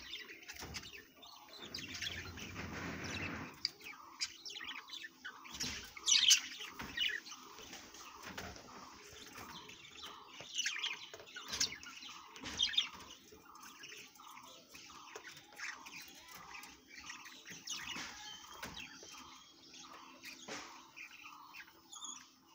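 Caged budgerigars chirping and chattering, a steady run of short chirps with a few louder, sharper calls, and a brief flurry of wing flapping about two seconds in.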